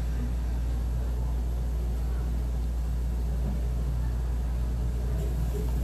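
Steady low engine-like rumble with no distinct events.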